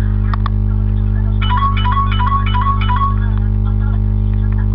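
A mobile phone ringtone playing a short tune of about eight quick notes that alternate between two pitches, over a steady electrical hum. A couple of clicks come near the start.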